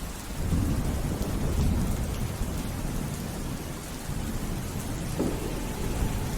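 Steady rain falling, with a low rumble of thunder that rolls in about half a second in and carries on.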